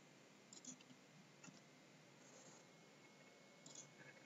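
Faint computer mouse clicks over near-silent room tone: a quick pair about half a second in, a single click around a second and a half, and a short run of clicks near the end.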